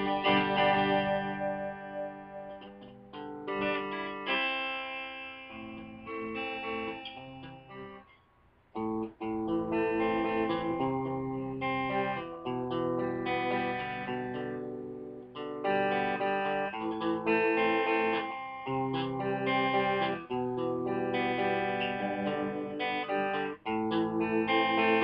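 Electric guitar being played, single notes and chords ringing on with sustain. The playing dies away about eight seconds in and picks up again a second later.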